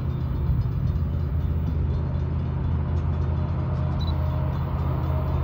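Diesel-electric locomotive engines of a Norfolk Southern freight train running as it approaches, a steady low drone.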